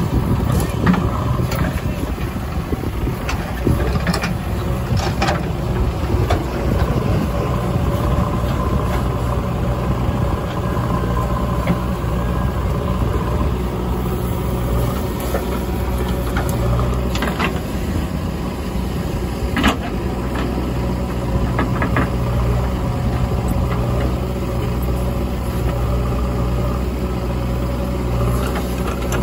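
JCB 3DX backhoe loader's diesel engine running steadily as the backhoe digs and swings, with scattered clunks and knocks from the bucket and from soil tipped into a tractor trailer.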